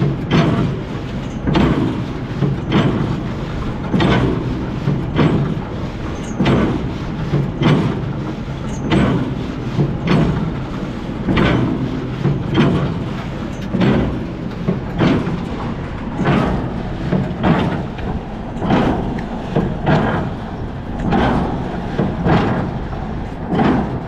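Old square baler running off a tractor's PTO, its plunger knocking in a steady rhythm about once every 1.2 seconds over the drone of the tractor engine.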